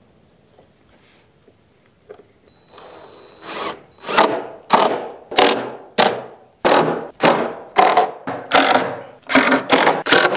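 DeWalt cordless drill boring and driving screws into a wooden board in a quick run of short trigger bursts, about two a second, starting a few seconds in.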